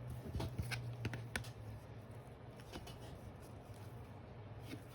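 Trading cards being handled and set down, with a few light taps and clicks in the first second and a half, over a low steady hum.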